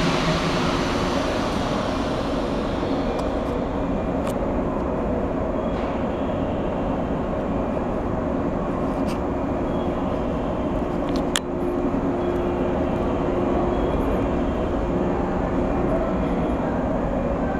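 Steady hum and hiss of a stationary 115 series electric train, its onboard equipment running while it waits with doors open, carrying a couple of steady low tones. A single sharp click about eleven seconds in.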